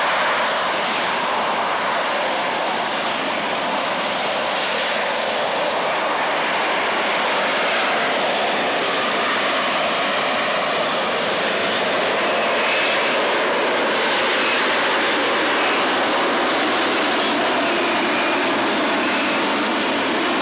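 Harrier jump jet hovering, its Rolls-Royce Pegasus vectored-thrust turbofan making a loud, steady jet noise that holds without change.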